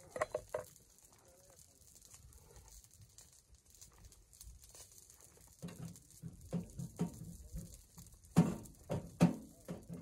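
Irregular knocks and clicks of cooking gear being handled at a small camp grill with a wire grate: a quick cluster just after the start, then a run of them over the last four seconds, the two loudest near the end.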